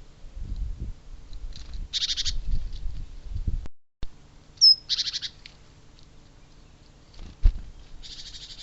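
Small birds calling: three short, buzzy chattering calls of rapid repeated notes, with one brief falling whistle. Low rumbling knocks come through in the first half, and a single sharp knock comes near the end.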